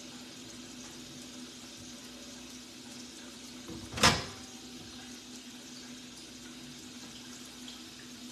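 Quiet, steady room hum with one short thump about four seconds in.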